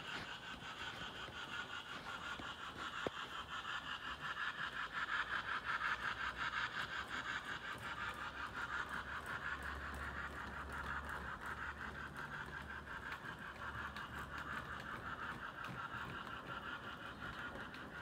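HO-scale model freight train, a Märklin steam locomotive hauling Trix Express wagons, running along the track: a steady whirr and fine rapid clatter of wheels on rails with a low motor hum, louder a few seconds in as the train passes closest, then easing off.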